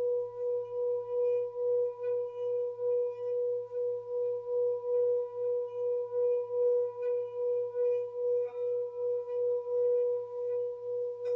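Tibetan singing bowl ringing with one steady sustained tone that wobbles in loudness about two to three times a second. It is struck again right at the end, bringing in fresh higher overtones.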